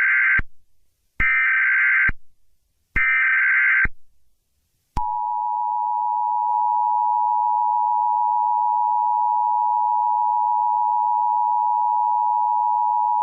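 Emergency Alert System signalling: three short bursts of SAME digital data tones, a harsh two-pitch warble, then, about a second after the last burst, the steady two-tone EAS attention signal, which holds unbroken to the end.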